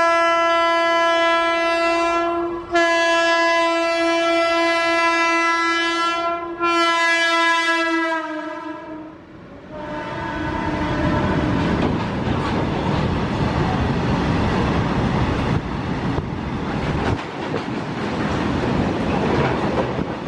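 A WAG-12B electric freight locomotive's air horn sounds three long blasts, the middle one longest, with the pitch dipping slightly on the last. It is followed by the loud rumble and wheel clatter of its open box wagons rolling past close by.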